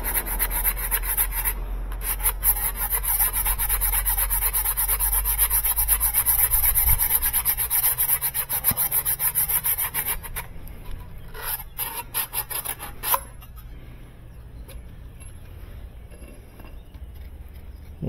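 Sandpaper rubbing by hand on the end of a brass tube in quick back-and-forth strokes, smoothing off a burr so the tube fits snugly over the shaft. The rubbing stops about ten seconds in, followed by a few light clicks and quieter handling.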